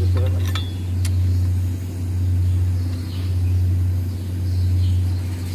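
Steady low drone of an engine running, swelling and easing about once a second. A few light metallic clicks of a hand wrench on the valve-cover bolts come in the first second.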